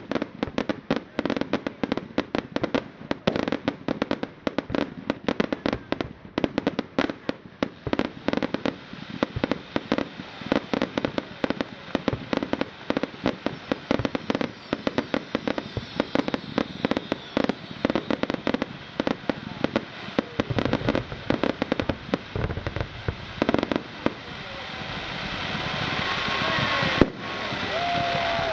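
Fireworks going off in quick succession: a dense barrage of sharp cracks and bangs that thins out after about twenty seconds, giving way to a rising wash of noise.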